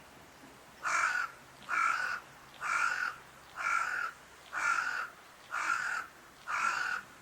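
A crow cawing seven times in an even series, about one caw a second.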